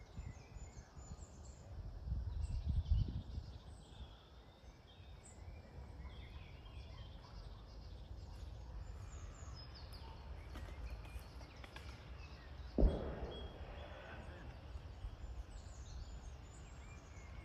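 Small songbirds chirping and singing faintly in short high calls throughout, over a low, uneven rumble that swells early on. A sudden thump sounds about three-quarters of the way through.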